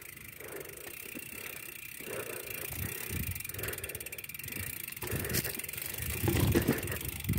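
Irregular rattling and rustling from a mountain bike being moved up a concrete path, mixed with handling noise as the phone microphone is moved about; it gets a little louder near the end.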